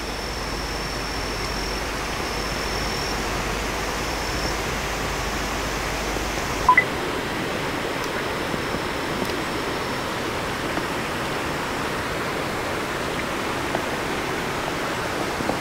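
Steady rushing noise like flowing water, with a faint high whine that comes and goes. Two short electronic beeps about seven seconds in are the loudest sound.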